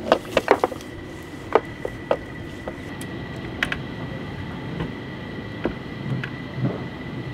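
A white reinforced livewell hose being pulled by hand through an opening in a fiberglass boat hull, knocking and rubbing against the hull: a quick run of sharp knocks in the first couple of seconds, then scattered softer ones. A faint steady high whine sits underneath.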